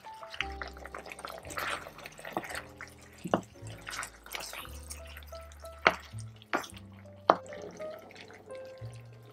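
Soft background music with held notes, broken by a few sharp, irregular knocks of a wooden spoon against a skillet as apple slices are stirred.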